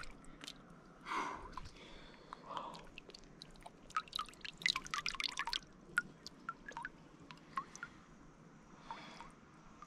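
Water dripping and trickling: scattered small drops and splashes, thickest about halfway through.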